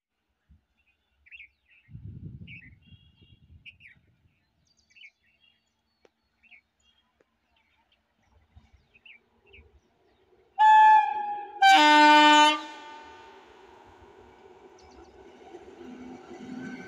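Birds chirping, then an electric locomotive's horn gives two blasts of about a second each, the second on a different, lower chord. After the horn comes the rising rumble of the approaching WAG-7 locomotive and its train.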